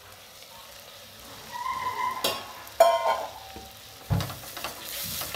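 Soaked jeerakasala rice scraped from a steel cup into a hot steel pan of sautéed onions and herbs. The cup clinks against the pan a little after two seconds, and the loudest clink comes just before three seconds. About four seconds in a thump is followed by a sizzle as the wet rice meets the hot oil and is stirred.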